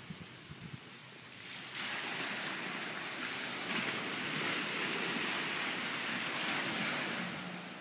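Storm surf breaking and washing ashore: a rush of noise that swells up about two seconds in, holds steady for several seconds, and eases off near the end.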